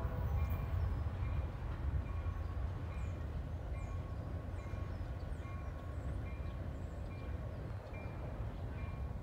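Freight train rumbling as it rolls away, slowly fading. Over it a grade-crossing bell rings evenly, about three strokes every two seconds, with a few faint bird chirps.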